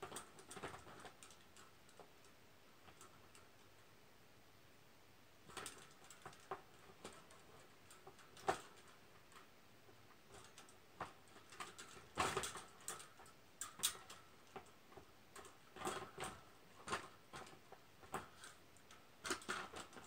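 Faint clicks and light rattles of a wire birdcage being handled as its parts are pushed into place, in scattered clusters starting about five seconds in.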